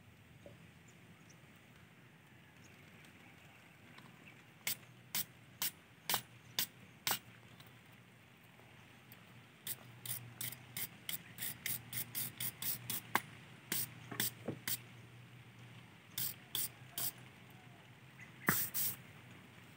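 Steel wire brush scrubbing the nozzle of an LPG cutting torch: short scratching strokes in quick runs, about two to three a second.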